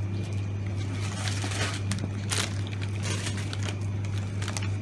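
Crinkling of plastic frozen-food packaging, handled in irregular bursts while rummaging in an open chest freezer, over a steady low hum.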